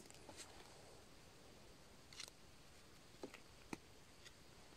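Near silence, with a few faint short clicks and light handling noise as a mushroom stem is picked up and cut with a pocket knife.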